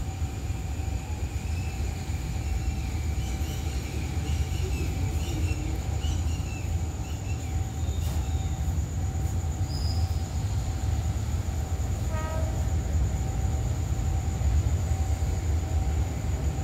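Low, steady rumble of an approaching diesel freight train, slowly growing louder as it nears. A faint steady high tone runs over it.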